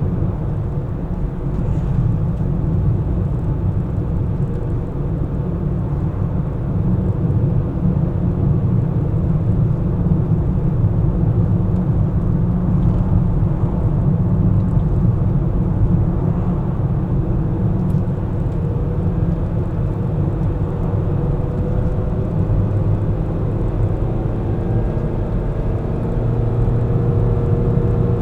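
A car driving in city traffic, heard as a steady low rumble of road and engine noise. Near the end a faint engine tone drifts up and down in pitch.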